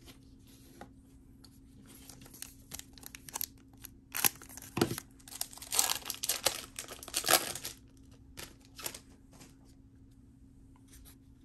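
Foil trading-card pack being torn open and its wrapper crinkled, a run of irregular tearing and rustling from about two seconds in until near the eighth second.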